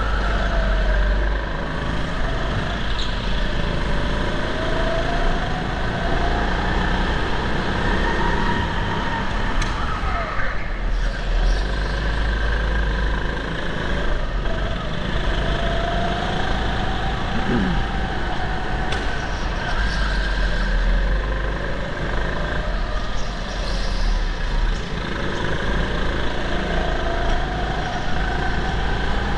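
Onboard sound of a go-kart's engine at racing speed, its pitch rising and falling again and again as it accelerates and slows through the corners, over a steady low rumble.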